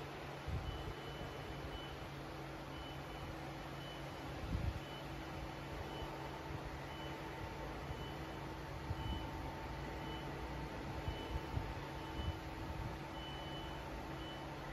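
Slant-bed double-turret CNC turn-mill lathe running: a steady machine hum under a high whine that cuts in and out in short, irregular dashes, with a few low knocks.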